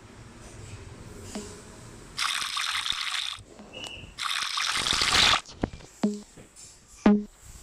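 Liquid pouring or splashing in two bursts of about a second each, followed by a few short sharp knocks.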